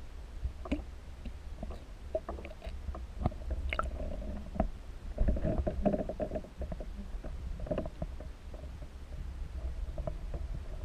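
Water heard through a submerged camera housing: a steady, muffled low rumble with scattered clicks and knocks, busier and louder about five to six seconds in.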